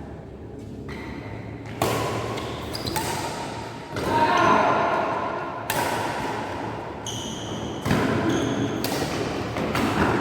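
Badminton racket strikes on a shuttlecock, about four sharp hits, echoing in an indoor hall, with brief high-pitched squeaks.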